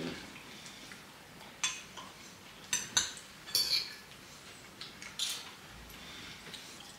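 Cutlery clinking and scraping against a dish while eating: a handful of short, separate clinks and scrapes at irregular intervals.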